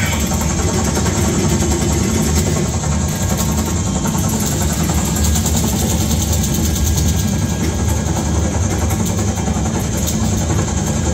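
Recorded helicopter engine and rotor noise, a loud, steady drone, played through the speakers of an immersive Vietnam War exhibit built around a Bell UH-1 Iroquois (Huey).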